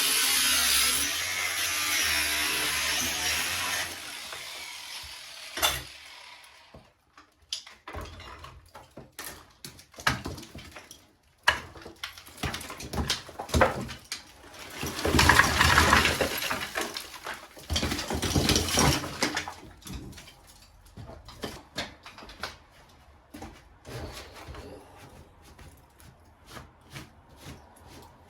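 A power tool cutting through the ceiling, running steadily for about four seconds and then stopping. Scattered knocks and clatter of the ceiling being worked loose follow, with a louder spell of cutting or breaking about halfway through.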